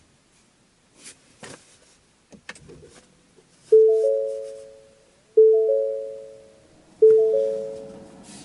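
A car's warning chime sounding three times, about a second and a half apart; each chime is a quick run of rising notes that rings and fades. A few faint clicks come before the first chime.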